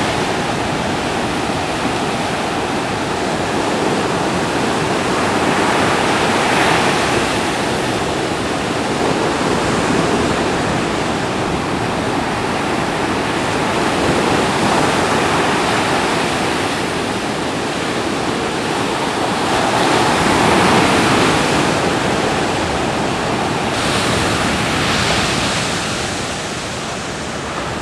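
Ocean surf breaking and washing in, a steady roar of white water that swells louder as waves break, about seven, twenty and twenty-four seconds in.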